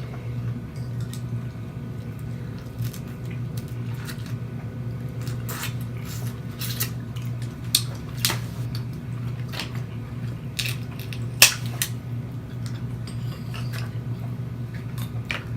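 Snow crab legs being cracked and picked apart by hand: scattered small clicks and snaps of shell, with sharper cracks about halfway through and the loudest crack about three quarters through. A steady low hum runs underneath.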